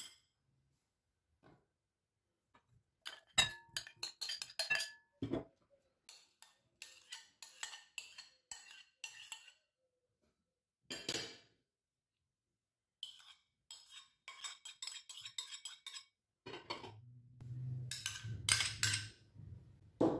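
Metal spoon clinking and scraping against glass and ceramic bowls while diced vegetables and chopped egg are spooned into a glass salad bowl: a long run of short, separate clinks and scrapes. Near the end the clinks come thicker over a low hum.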